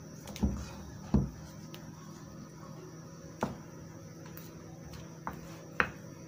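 Spatula working risen puff puff yeast batter in a glass bowl after knocking it back: about five separate knocks and plops as the spatula strikes the bowl and the sticky batter drops back, the heaviest two in the first second or so.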